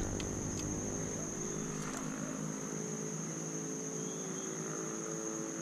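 Steady, high-pitched chorus of insects such as crickets, with a faint steady low drone underneath.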